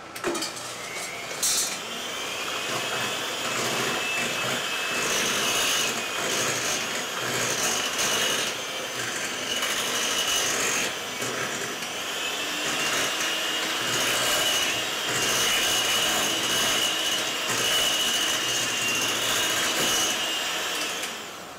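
Electric mixer running steadily, beating the dry ingredients into the wet coffee-cake batter. Its whine wavers a little in pitch, and it cuts off near the end.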